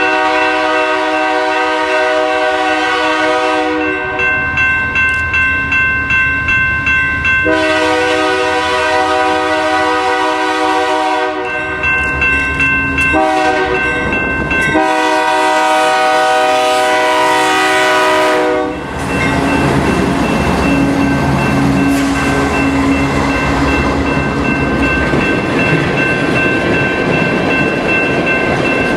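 Diesel locomotive's multi-chime air horn sounding for a road crossing in long, long, short, long blasts, with the wheels clacking over rail joints. After the last blast the locomotive and ore cars rumble past.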